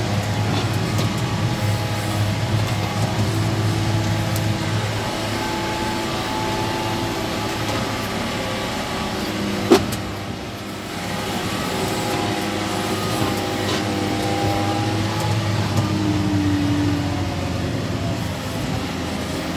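John Deere 6145 tractor engine running steadily under load, heard from inside the cab, pulling a 27-row Semeato planter. There is a single sharp click about ten seconds in.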